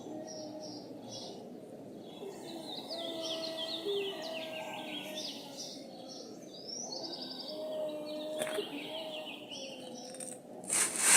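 Birds chirping and trilling in quick repeated runs over a steady outdoor background, with faint, long held low tones underneath. A short, loud rush of noise comes near the end.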